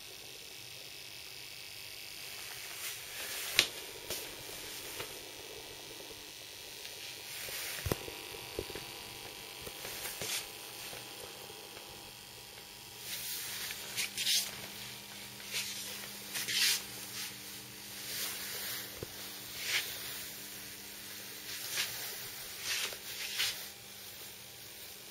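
Quiet room tone with steady hiss and a faint steady hum, broken by a sharp click about three and a half seconds in and, in the second half, a run of short soft rustling noises.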